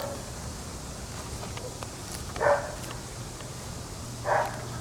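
A dog barking: two single barks about two seconds apart, over a low steady hum.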